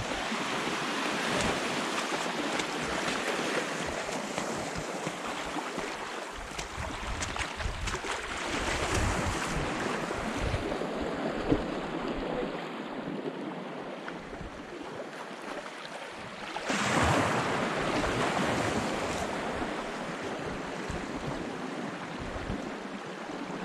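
Sea waves washing onto the shore, with wind buffeting the microphone; a louder wave breaks about two-thirds of the way through.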